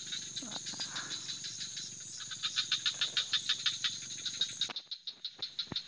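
Night insects, crickets among them, chirping in a fast, even pulse. A few sharp clicks come near the end.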